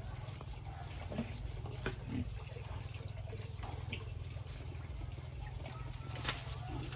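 Native black pigs grunting now and then, with a few short grunts, the loudest near the end, over a steady low rumble and a thin steady high tone.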